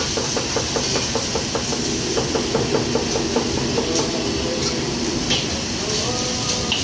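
Commercial wok range and extraction hood running with a steady rushing noise. Over it, a rapid rhythmic knocking, about four a second, goes on for the first three and a half seconds, and a short rising tone sounds near the end.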